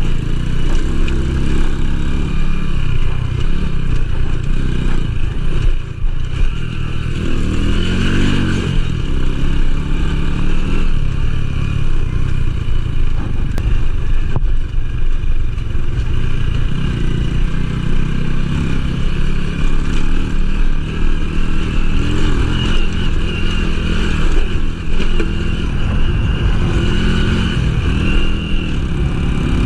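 Small motorcycle engine running off-road, its pitch rising and falling again and again as the throttle is opened and closed.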